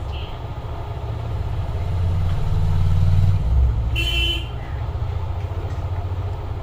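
Steady low rumble of road traffic, with a short vehicle horn toot about four seconds in.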